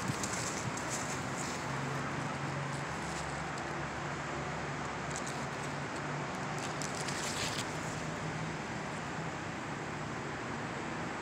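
Steady outdoor hum of distant traffic, with a few brief rustles near the start and again around five and seven seconds in.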